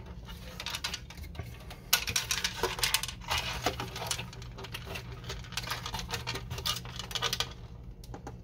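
Hard plastic scanner housing of an inkjet printer being handled and turned over: irregular clicks, taps and scrapes of plastic parts knocking and sliding against each other, busiest from about two seconds in.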